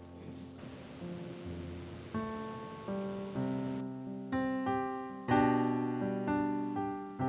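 Slow piano music: single notes and chords struck one after another, each fading away, growing louder about five seconds in.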